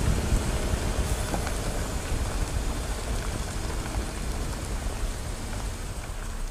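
Steady low vehicle rumble with road noise from driving up a dirt road, slowly getting quieter.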